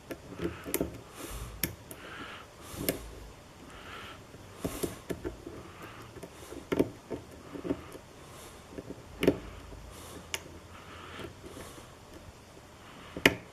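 Lock pick and tension wrench working a pin tumbler lock with spool and serrated pins: scattered small metallic clicks and taps as pins are lifted and set, a few sharper than the rest, with soft breaths in between.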